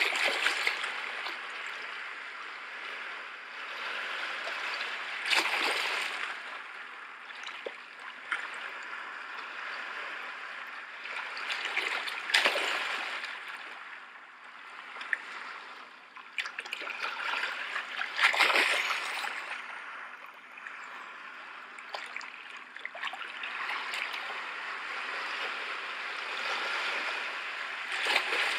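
Sea waves washing in: a steady rush of water that swells louder every five or six seconds.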